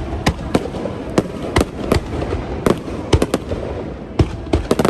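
Fireworks display: aerial shells bursting in a quick, irregular string of about a dozen sharp bangs over a low, continuous rumble.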